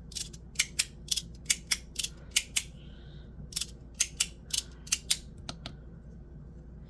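A 3D-printed magnetic sliding fidget toy clicking, its plates snapping sharply into place as they are slid back and forth. The clicks come at roughly three a second, pause briefly near the middle, and stop about a second before the end.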